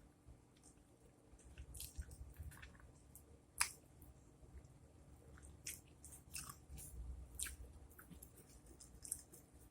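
A person chewing food, faint wet mouth clicks scattered through, with one sharper click about a third of the way in.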